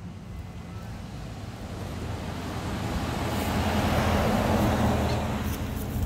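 A car driving past: a broad rumbling whoosh that builds to its loudest about four to five seconds in and then begins to fade.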